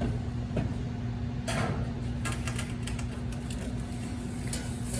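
Steady low machine hum with a constant tone, broken by several short clicks and knocks of parts being handled.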